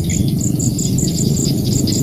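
Rice-field chorus: a dense, steady low croaking of many frogs, with an insect chirping high in an even pulse about four times a second and scattered higher chirps over it.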